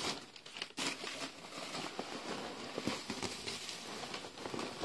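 Packing paper and bubble wrap rustling and crinkling as hands dig through a cardboard box, a steady run of small crackles.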